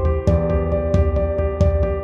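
Background music: sustained keyboard chords over a steady, quick percussion beat.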